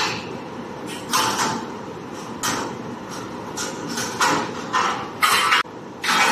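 Metal mould frame and hoist gear of a rock-and-roll rotational moulding machine being worked with poles: a series of short scraping, clanking bursts at irregular intervals, the loudest about five seconds in, over a steady low machine hum.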